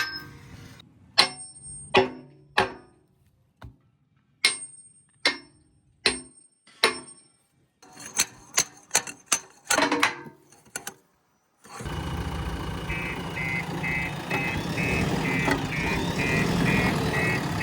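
A series of sharp metal clanks and knocks with a ringing tail, coming singly and in quick clusters. Then, after a short gap, a diesel backhoe loader engine runs steadily with a beep that repeats a few times a second.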